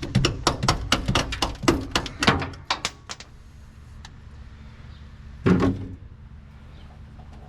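A quick run of sharp knocks and clanks, several a second, from tools and parts being worked on in a truck cab. They stop after about three seconds, and one heavier thunk follows a couple of seconds later.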